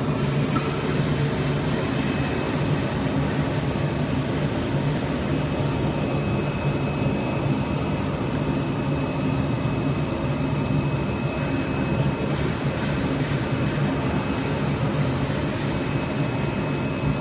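CNC knife cutting machine running steadily, a constant mechanical drone with a faint high whine, as its knife head cuts a groove into a polyester fibre acoustic board.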